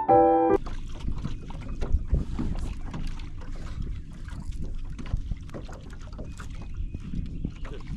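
Wind buffeting the microphone and water lapping against a small fishing boat's hull, with many small knocks and splashes. A piano tune cuts off about half a second in.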